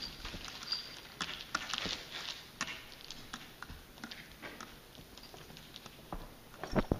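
Cats' paws pattering and clicking on a tile floor as they play and walk about, in scattered light taps. A louder knock comes near the end.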